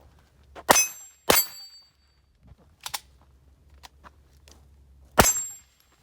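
Three .22 LR pistol shots from a Taurus TX22 Competition, the first two about half a second apart and the third about four seconds later, each followed by a brief high metallic ring of a steel target being hit.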